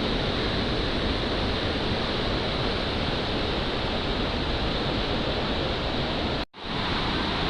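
Shifen Waterfall rushing in a steady, full roar of falling water, heavy with runoff after a day of pouring rain. The sound cuts out for a split second about six and a half seconds in, then comes straight back.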